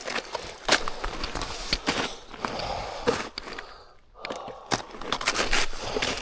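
Irregular crunching footsteps and snapping twigs as a hiker pushes up a steep slope through brush, with heavy breathing. There is a brief lull about four seconds in.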